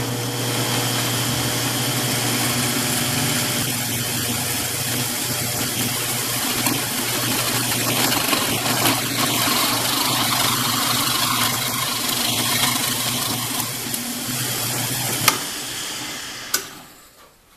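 Drill press running steadily with an 11/32 inch bit boring into a wooden handle held in a jig. About 15 seconds in it stops with a sharp click and the motor spins down.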